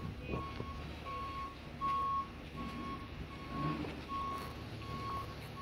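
A utility boom truck's reversing alarm beeping at a steady pace, one tone roughly every three-quarters of a second, over the low running of the truck's engine as it backs up.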